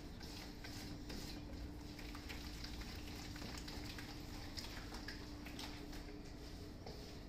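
A thick yogurt-and-spice masala being stirred in a bowl: soft, faint wet stirring with scattered light clicks, over a steady low hum.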